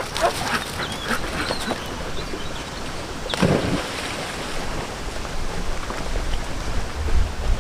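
Rushing water and wind noise at a river, with a brief louder sound about three and a half seconds in.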